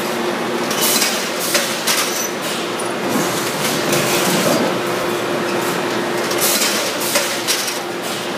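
Aluminum roofing-shingle forming press and belt conveyor running: a steady machine hum with irregular metallic clanks and rattles as formed panels come off onto the conveyor.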